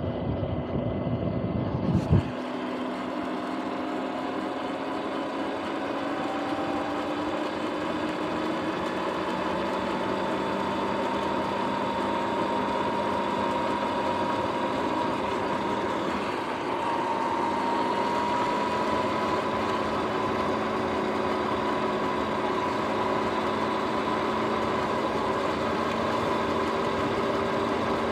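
Sur-Ron X electric dirt bike's motor and drivetrain whining, the whine slowly rising in pitch as the bike gathers speed, over steady tyre and wind noise. At first a muffled rumble from the camera being handled, ending in a thump about two seconds in.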